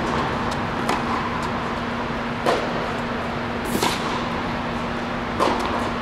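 Tennis balls struck by rackets in a crosscourt baseline rally on an indoor hard court: four sharp pops roughly every one and a half seconds. The loudest, about four seconds in, is the near player's forehand, and all of it plays over a steady background hum.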